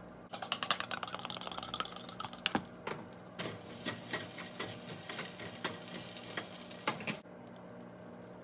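Breakfast food sizzling in a non-stick frying pan while being stirred, with repeated clicks and scrapes of a utensil against the pan. It starts abruptly and cuts off about seven seconds in.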